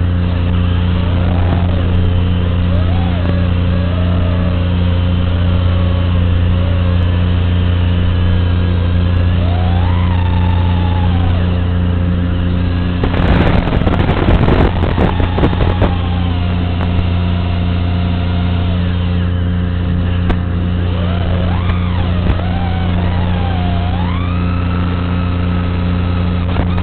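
Racing quadcopter's motors whining, their pitch gliding up and down as the throttle changes, under a loud steady electrical hum. A rough crackling burst comes about halfway through, as the quad swoops close to the ground.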